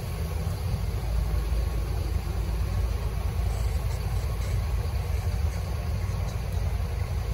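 Steady low rumble of road traffic, with engines of passing and idling cars.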